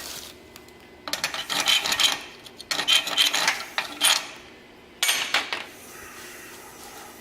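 Metal scraping against a steel weld in three rasping bouts of quick strokes, as flux residue is worked off a fresh flux-core MIG weld.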